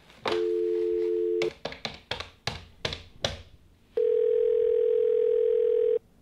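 Telephone call placed from a corded phone: a steady dial tone for about a second, then a quick, uneven run of dialing clicks, then a single ringback tone held about two seconds in the earpiece.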